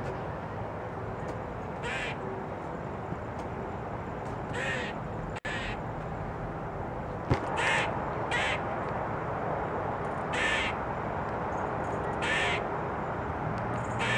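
A black squirrel giving harsh, short calls about seven times, one to two seconds apart: the scolding alarm calls that squirrels make.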